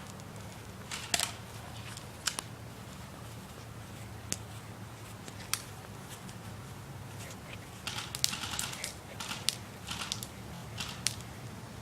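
Airsoft guns firing: sharp single snaps a second or two apart, then a quicker run of shots and hits near the end.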